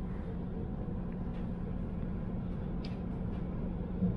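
Hamburg U-Bahn metro train running, heard from inside the carriage: a steady rumble with a constant low hum.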